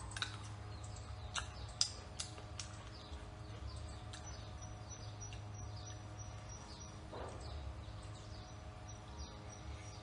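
Birds chirping over a steady low hum, with a few sharp crunches of chewing in the first couple of seconds as a piece of fruit is bitten.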